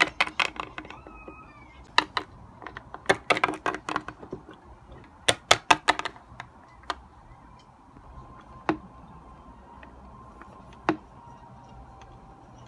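Hard plastic toy figurines tapped and clacked against a wooden tabletop: quick runs of sharp clicks through the first six seconds, then only a few single taps.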